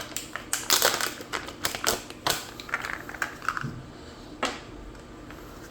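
Quick hard-plastic clicks and knocks from handling inkjet printer ink cartridges, dense for the first couple of seconds, then sparse, with a last single knock near the end.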